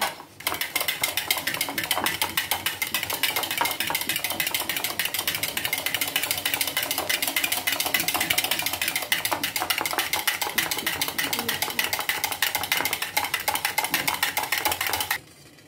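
Metal hand whisk beating heavy cream in a ceramic bowl: a fast, even run of clicks as the wires strike the bowl, stopping shortly before the end.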